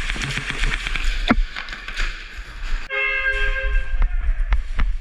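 A horn blast with a steady, several-toned sound, starting abruptly about three seconds in and lasting just under a second, amid sharp clicks.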